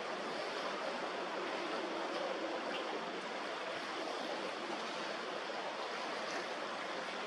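Steady rush of choppy sea water, an even wash with no distinct splashes and no engine tone standing out.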